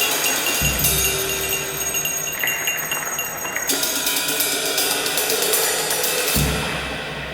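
Improvised percussion music: a dense, high shimmer of cymbals and small metal percussion, with two deep drum strokes, one about half a second in and one near the end.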